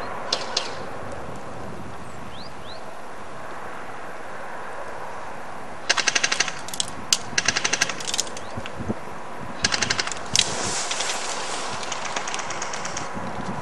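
Airsoft guns firing rapid full-auto bursts of sharp clicks, starting about six seconds in and again near ten seconds, with fainter bursts running on for a few seconds after, over a steady hiss.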